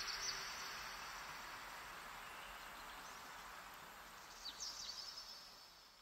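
The ambient outro of a sped-up phonk track: a soft hiss of noise, like wind, slowly fading out, with a few brief high chirps like birdsong about four and a half seconds in.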